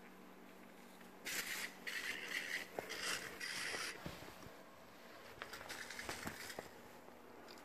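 Yellies spider toy buzzing and rattling as it skitters across the rug, in a few short spells over about three seconds, then only faint scattered clicks.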